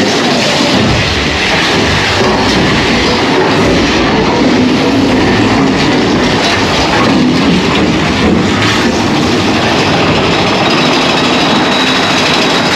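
Big Thunder Mountain Railroad mine-train roller coaster running on its track through a tunnel: a loud, steady rumble and rattle of the train's wheels and cars.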